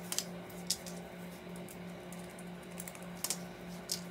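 Small, sharp plastic-and-metal clicks from a Phillips screwdriver working the screws out of an instrument-cluster display's circuit board. There are four or five separate ticks spread out, the last near the end as the screwdriver is set down on cardboard.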